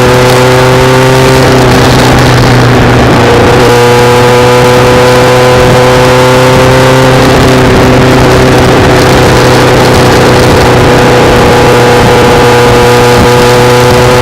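Kawasaki GPX750R Ninja's inline-four engine running at a steady cruising speed under way, easing off briefly about two seconds in and then holding a steady pitch again, with wind noise over it.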